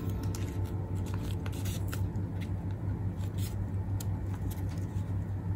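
Origami paper being handled and folded: soft, scattered crinkles and taps of paper over a steady low hum.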